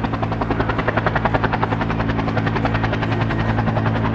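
Light aircraft piston engine and propeller running steadily, a low drone with a rapid, even beat.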